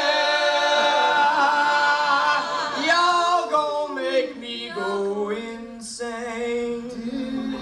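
A cappella group of male and female voices singing in harmony, holding long notes, with a low note sustained through the second half.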